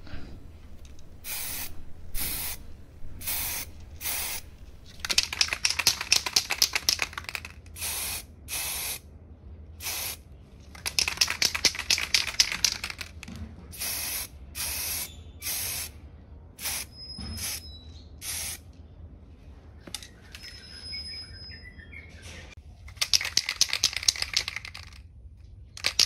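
Aerosol spray-paint can spraying black paint in a series of hissing bursts. Most bursts are short, under a second; a few sprays last about two seconds.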